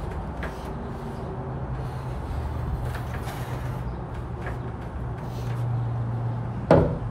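A steady low mechanical hum, like an engine running, under scattered light knocks of lumber as wooden roof trusses are handled, with one sharp knock near the end.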